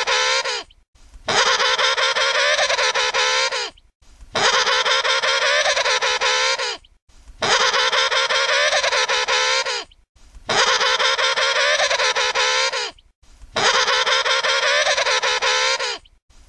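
Emperor penguin trumpeting, the same call looped: five calls of about two and a half seconds each, with short gaps between. Each is a buzzy, wavering call whose pitch lifts slightly and then drops away at the end.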